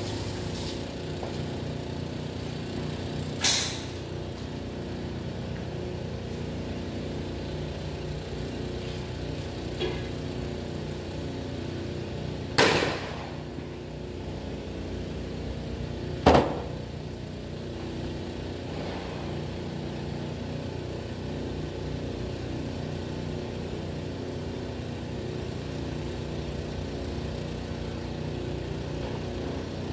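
Three gunshots on a shooting range, sharp loud reports spaced several seconds apart, the last two about four seconds apart, over a steady motor-like hum.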